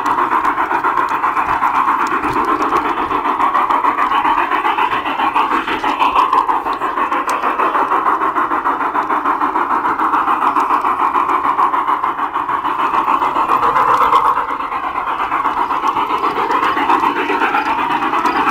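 LGB G scale model train running along garden track, heard up close from on board: a steady rattling whir of motor, gears and wheels, with a faint wavering whine.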